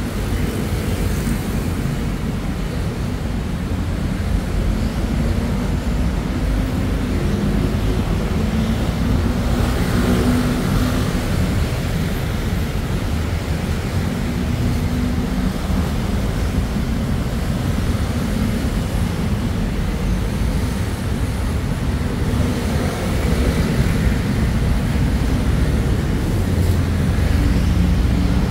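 City road traffic passing: a steady wash of engine and tyre noise, with low wind rumble on the microphone.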